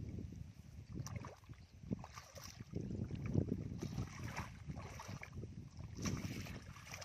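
Bare feet wading and sloshing through shallow muddy water, with irregular splashes, over a low wind rumble on the microphone.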